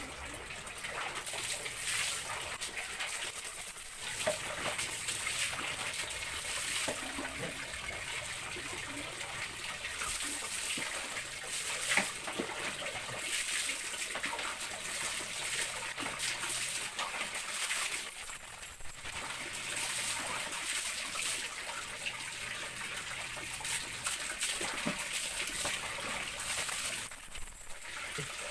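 Water trickling and splashing on a tiled floor while a dog is bathed and rubbed down by hand.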